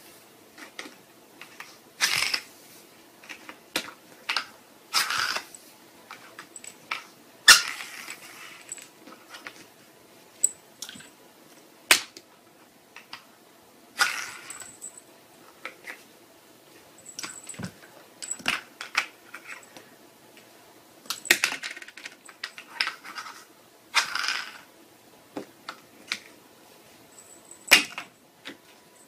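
Small plastic lids clattering and skidding across a wooden floor as a kitten bats them about: irregular sharp clicks and short scraping slides with quiet gaps between.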